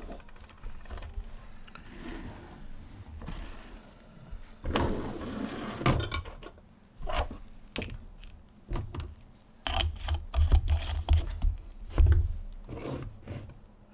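Small craft tools and plastic marker parts being picked up and set down on a wooden tabletop: scattered clicks, light knocks and scrapes, with a longer rustle about five seconds in and a run of knocks with low thumps near the end.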